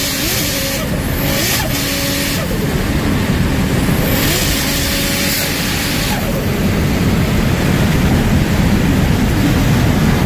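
The engine of a 700 hp turbocharged Toyota Supra is running while the car is driven at speed, with heavy road and wind noise. Bursts of high turbo hiss come in the first two seconds or so and again from about four to six seconds in.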